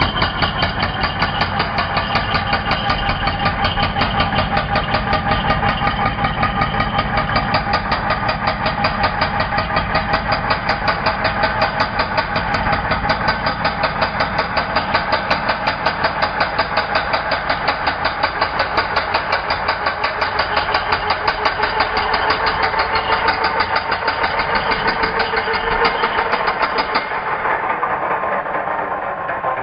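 Ingco 16 kg electric concrete breaker hammering continuously in a fast, even stream of blows. Near the end the sound thins and drops a little in level.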